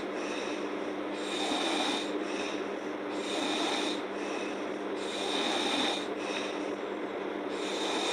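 A girl snoring in deep sleep, her breaths swelling and fading in a rough rhythm every one to two seconds.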